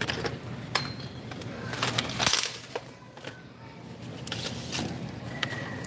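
Scattered clicks and knocks of packaged candy and plastic items being handled on a metal store shelf, over a steady low background hum, with a louder clatter about two seconds in.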